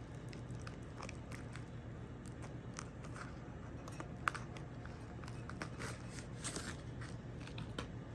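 Faint crinkling and scattered clicks of packaging and foil booster packs being handled, over a low steady hum.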